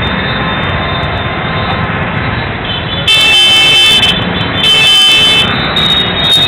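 Two loud, high-pitched vehicle horn blasts, each about a second long, about three seconds in and again just before five seconds, with shorter toots near the end, over the steady noise of busy street traffic and a crowd.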